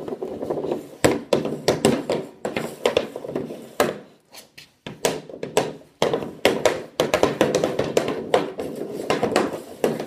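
Hockey sticks slapping pucks and the pucks knocking off the shooting pad and walls: a rapid, irregular run of sharp clacks and thuds, with a short lull about four seconds in.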